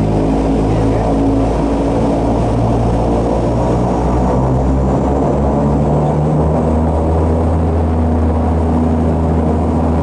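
Turboprop airliner's engines and propellers running steadily, heard from inside the cabin while taxiing. It is a low hum made of several steady tones, and the lowest tone grows stronger about two-thirds of the way through.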